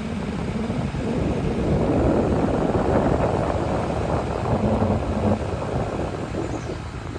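Truck driving along the road, a steady rush of engine and road noise that swells and eases.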